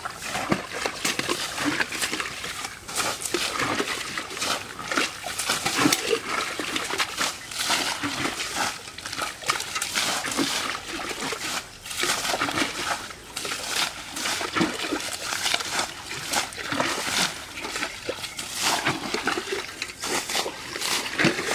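Muddy canal water being bailed by hand with metal pots by several people at once: an irregular run of scoops and splashes as the water is thrown out.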